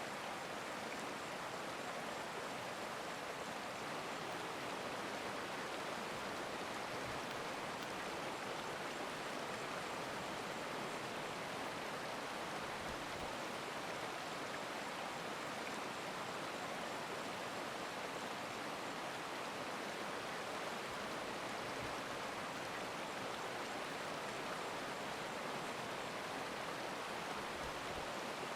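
A stream running steadily: a constant, even rush of flowing water.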